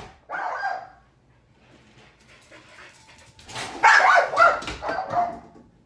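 A dog barking: a short burst just after the start, then a longer run of barks from about three and a half seconds in.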